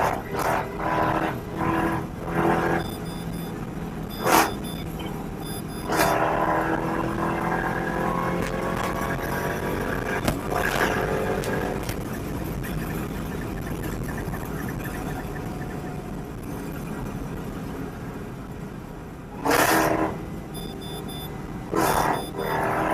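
Jeep Grand Cherokee Trackhawk engine accelerating hard, its pitch climbing for several seconds. A few short, loud bursts of noise break in, one near the start and a couple near the end.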